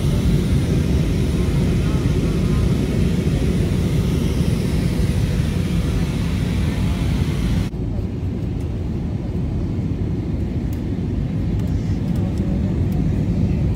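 Steady low drone of a vehicle in motion. About eight seconds in it changes abruptly: the hiss above it drops away and the low rumble carries on.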